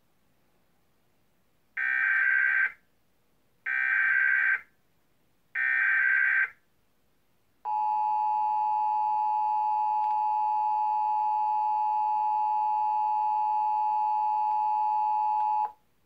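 Emergency Alert System test tones played through a television: three roughly one-second bursts of the SAME digital header, warbling data tones, followed by the two-tone attention signal (853 and 960 Hz sounded together). The attention signal holds steady for about eight seconds, then cuts off sharply.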